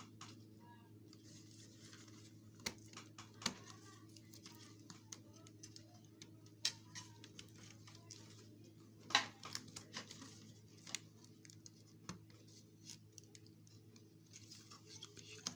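Scattered small clicks and scratches of hands working apart a flat-screen monitor's glued ribbon cables and panel parts, with a sharper snap about nine seconds in, over a steady low electrical hum.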